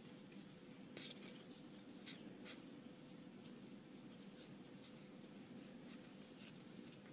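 Faint scratchy rustles of trading cards sliding against one another as a stack is fanned and flipped through by hand, a dozen or so short swishes at an uneven pace.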